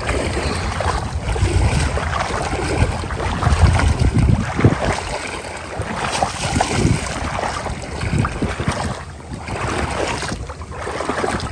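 Wind buffeting the microphone in an uneven rumble, over irregular splashing and lapping of water.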